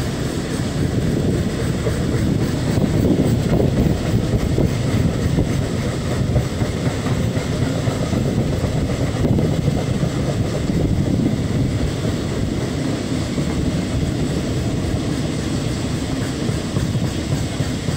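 A container freight train's loaded flat wagons passing steadily, with a continuous wheel-on-rail rumble.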